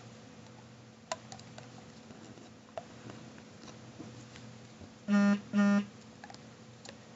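Faint clicks and taps of rubber bands being stretched over the pegs of a plastic rubber-band loom, then two short identical steady-pitched tones in quick succession about five seconds in, the loudest sound here.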